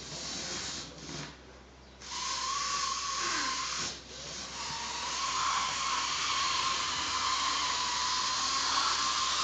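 An OO gauge model locomotive running on the track, heard as a steady hissing whine that starts about two seconds in and dips briefly once. A few light clicks come before it as the train is handled on the rails.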